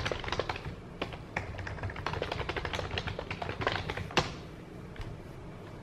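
Light, irregular clicks of typing on a computer keyboard, with one sharper click about four seconds in.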